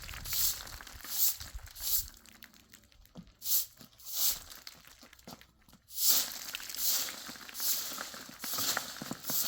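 Footsteps crunching in snow at a walking pace, about one step every 0.8 s, with a short pause about halfway through.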